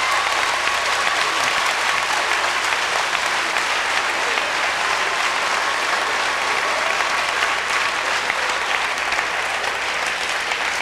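Large audience applauding steadily, a dense clatter of many hands clapping at once.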